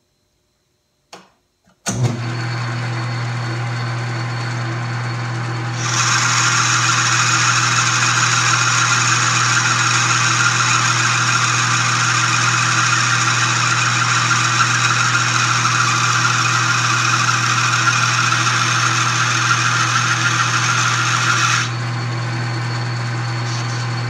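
South Bend 13-inch metal lathe switched on about two seconds in, running with a steady hum. From about six seconds a loud, even hiss of the tool taking the final finishing pass along a bronze bushing, with a brush held in the chip stream. The cut stops near the end while the lathe keeps running.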